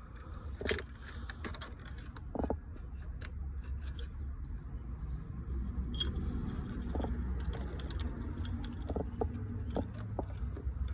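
Light metallic clinks and clicks of hand tools and parts as a replacement carburetor is seated and bolted onto a small ATV engine, with a steady low hum underneath.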